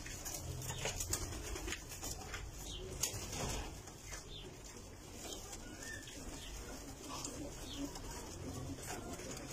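A flock of red domestic pigeons cooing, with a few short sharp clicks among the birds.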